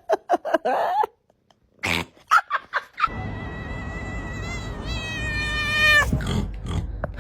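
Domestic cat vocalizing: a run of short chirps and clicks, then one long, high drawn-out call from about three seconds in that drops in pitch and breaks off about six seconds in.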